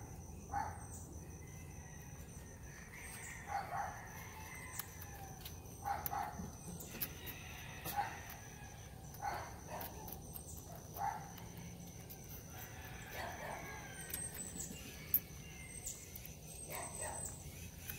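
Baby squirrel sucking puppy milk from a drinking tube fixed through its cage bars: short sucking sounds every one to three seconds, with faint clicks between.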